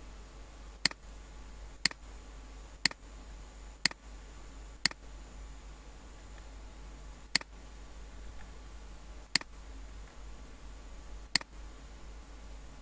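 Computer mouse button clicking eight times in sharp single clicks, mostly about a second apart with a longer pause near the middle, over a low steady hum.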